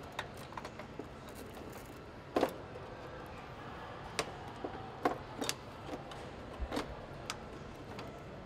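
Scattered clicks and knocks of plastic and metal parts being handled and fitted by hand on a car assembly line, over steady factory background noise; the loudest knock comes about two and a half seconds in.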